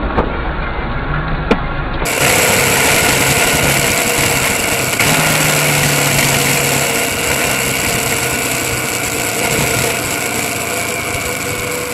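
Motorcycle engine running at road speed with steady wind noise, heard from the rider's own bike. It comes in suddenly about two seconds in, after a short stretch of car dashcam traffic noise that holds one sharp click.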